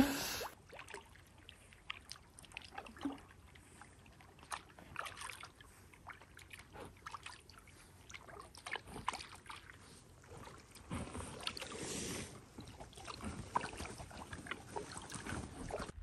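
Quiet paddling in inflatable pack rafts on still lake water: scattered small drips and splashes from the paddles. A louder swishing of water comes in from about eleven seconds in.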